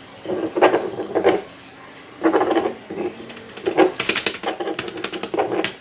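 Pen writing on paper: a few short scratching strokes, then a run of quick ticking strokes in the second half.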